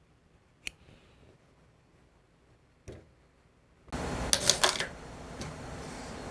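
A faint snip of tailor's shears cutting suit fabric and a soft thump. About four seconds in, a steady background hum sets in, with a quick cluster of sharp clicks as the sleeve is handled at the industrial sewing machine.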